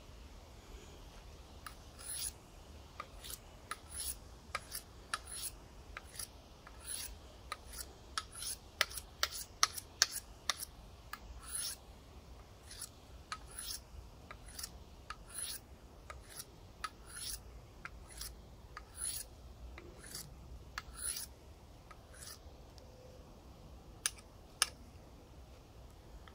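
Knife blade honed on a Wenger fine sharpening steel: quick alternating strokes, about two a second, each a short metallic scrape of edge on steel, starting about two seconds in.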